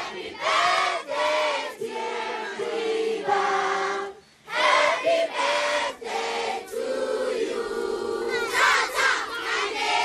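A crowd of voices singing together in short phrases, with held notes, a brief pause about four seconds in, and louder shouted notes near the end.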